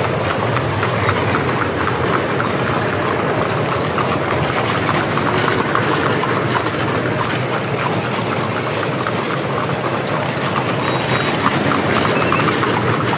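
Horse-drawn carriage traffic: a steady, dense clatter of many hooves clopping together with rolling carriage wheels.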